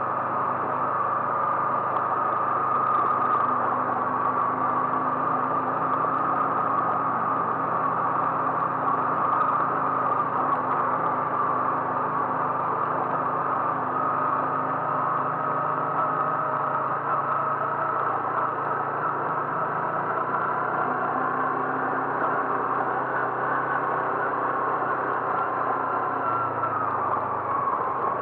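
A car driving at a steady speed: even engine drone and road noise that hold without change.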